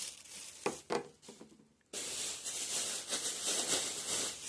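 Toy packaging being handled and pulled apart: two sharp clicks about a second in, then from about two seconds a steady rustling and rubbing of packaging material.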